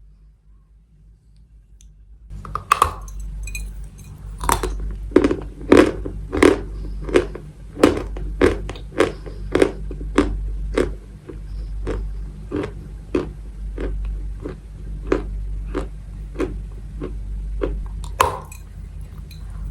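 Maria chalk being chewed close to the microphone: after about two seconds of quiet, a run of crisp crunches comes at a steady pace of roughly one and a half to two a second, with one louder crunch near the end. A steady low hum lies under the crunches.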